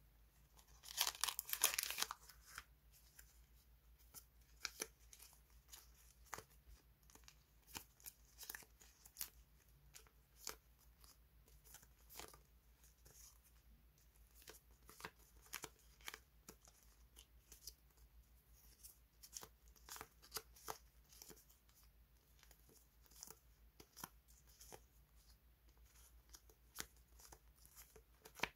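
A plastic packet rustling briefly about a second in, then soft crinkling and light ticks as a bundle of thin clear flower sticker flakes is handled and pulled apart.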